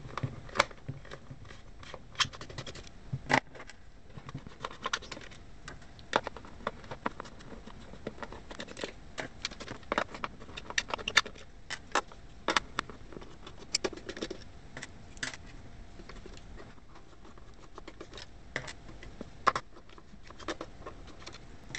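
Small screwdriver unscrewing screws from the plastic underside of a cheap robot vacuum, with irregular clicks and short scrapes of the tool and the handled plastic shell.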